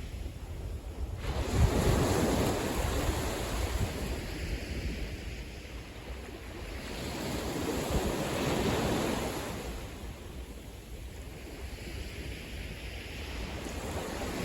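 Sea waves breaking on a beach. The surf swells and falls back about every six seconds: two surges, with a third building near the end.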